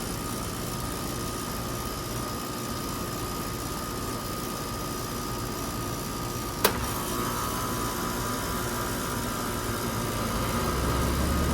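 New 3.5-ton Grandaire heat pump outdoor unit starting up: a steady hum, then one sharp, loud click about two-thirds of the way through as the scroll compressor kicks on. After that it runs steadily, with the low hum growing louder near the end.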